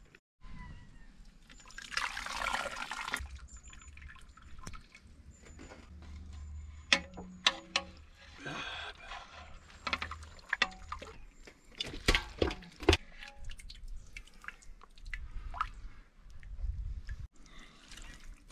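Liquid sounds, pouring or sloshing, broken by sharp clicks and knocks, with a low rumble in places.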